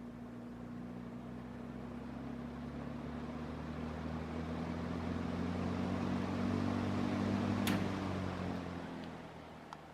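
Vintage Dominion 20-inch box fan's McMillan shaded-pole motor starting up. The motor hum and air rush build slowly as the low-powered motor comes up to speed. There is a sharp click about eight seconds in, and then the sound begins to die away.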